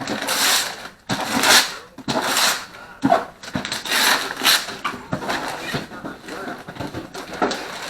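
Packaging being handled and rustled while boxes are unpacked. The sound comes as a run of uneven rustling bursts, the loudest in the first five seconds.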